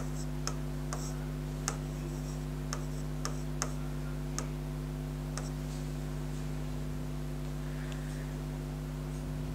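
Irregular sharp taps and clicks of writing, about nine in the first five and a half seconds, over a steady electrical mains hum.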